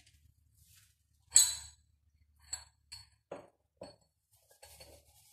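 Metal kitchen utensils clinking and knocking as neem leaves are pounded: one sharp clink, then four shorter ringing knocks, as of a pestle striking in a metal mortar.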